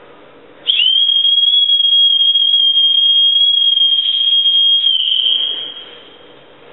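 One long, loud, steady high-pitched whistle blown at the mouth. It starts with a quick upward slide about a second in, holds one note for about four seconds, then tails off.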